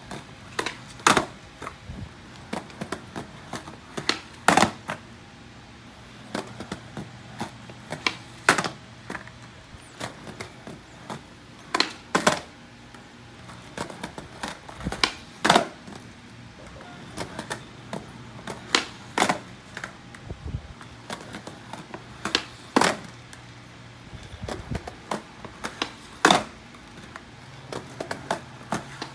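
Skateboard on concrete pavers: wheels rolling and clicking over the joints, with a sharp clack of the board landing back on the pavers about every three to four seconds from boneless attempts.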